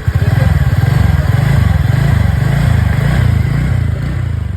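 TVS Ntorq 125 scooter's single-cylinder engine revved up from idle, held at raised revs, then easing back near the end. Freshly repaired, it runs smooth, with no abnormal engine noise.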